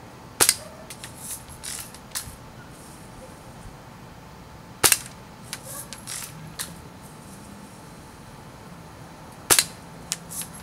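Spring-powered Buck BB gun firing three times, each shot a sharp crack about four to five seconds apart, with a few lighter clicks after each shot.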